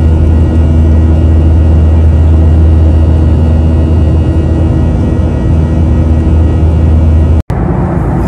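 Airliner cabin noise heard from a window seat: a steady engine drone with a strong low hum. The sound cuts out for an instant near the end, then a similar drone resumes.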